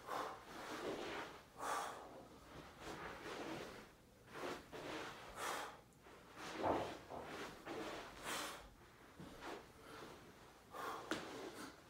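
A man breathing hard in short, sharp exhales every second or so while doing bodyweight grappling drills on a carpeted floor. A soft thump of his body or hands on the rug comes a little past the middle.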